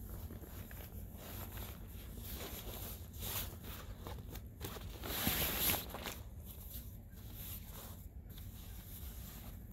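Rustling and swishing of waterproof bivy-cover fabric and its stuff sack as the bivy is pulled out and unrolled, with a louder swish a little past the middle. A steady low hum sits underneath.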